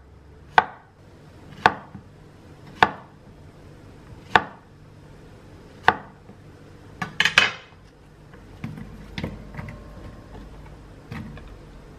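Chef's knife slicing a zucchini into rounds on a wooden cutting board: five sharp knocks, about one every second or so. About seven seconds in comes a short clatter, then softer knocks as the slices are dropped into a stainless-steel bowl.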